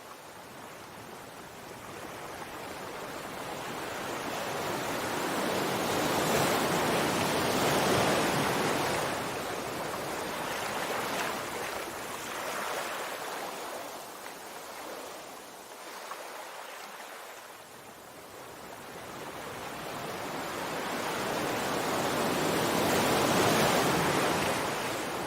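Sea surf: waves breaking and washing ashore in slow surges, swelling up and fading away, with two big swells.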